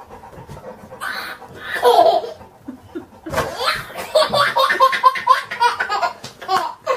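Toddler laughing: a couple of short laughs, then from about halfway in a long run of quick, repeated laughs.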